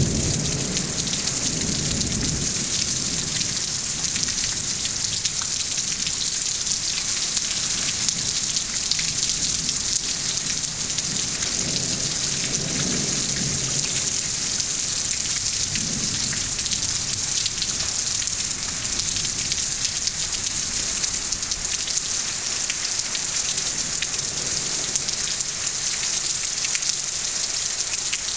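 Heavy rain pouring steadily, with low rumbles of thunder near the start and again about halfway through.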